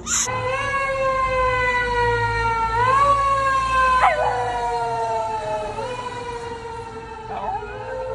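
A siren wailing in long, slow sweeps that fall and then rise again twice, with a Shiba Inu howling along to it. The dog's short sliding cries break in about four seconds in and again near the end.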